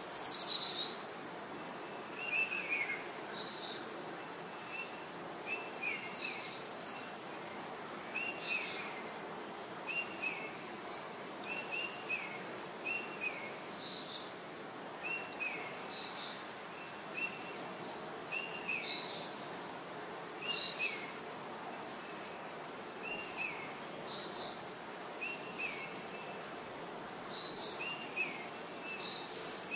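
Birds chirping repeatedly outdoors, short high notes coming roughly once a second over a steady background of outdoor noise. A brief, sharp high-pitched sound is loudest right at the start.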